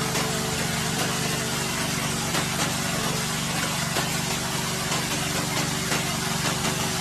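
Small engine running steadily at an even speed, over a constant hiss.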